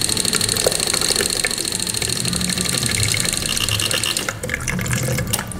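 Motorcycle electric fuel pump running with the ignition on, a fast steady chatter as it pumps fuel out through the hose into a jug to flush dirt from the fuel line. It stops abruptly about four seconds in.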